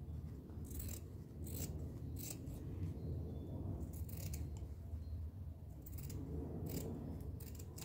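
Scissors cutting through fabric scraps along a marked line: a string of separate snips, irregularly spaced, over a steady low hum.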